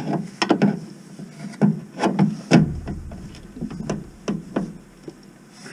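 A string of sharp, irregular metal clanks and knocks: a socket and breaker bar being fitted and worked on a rusted bumper bolt.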